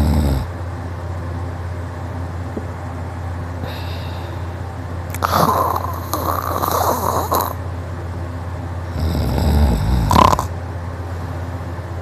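A man snoring loudly in deep sleep, with snores a few seconds apart. One snore trails off at the start, a long one comes about five seconds in, and another about nine seconds in ends in a sharp snort. A steady low hum runs underneath.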